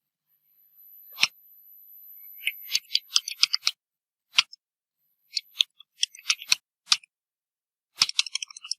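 Computer keyboard typing: irregular clusters of key clicks separated by short pauses.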